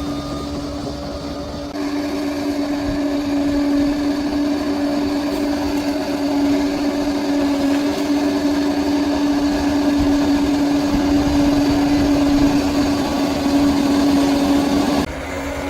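Bulldozer running under work, a steady machine drone with a strong constant hum; it grows louder about two seconds in and drops abruptly near the end.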